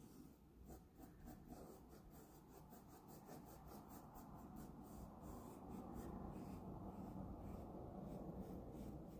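Faint scratchy brushing of a paintbrush dragged across a canvas, growing a little louder about halfway through.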